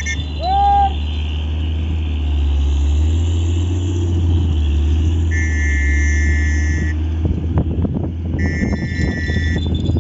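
A motor running steadily with a low hum. A short pitched call sounds about half a second in, two steady high tones last about a second each around the middle and near the end, and scattered knocks and rustles come in over the last few seconds.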